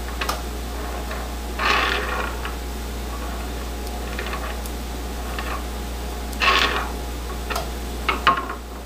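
Small clicks and brief scraping rustles as fingers handle and turn a coin cell battery for the welding helmet's filter cartridge, with two louder scrapes. A steady low hum runs underneath and cuts off near the end.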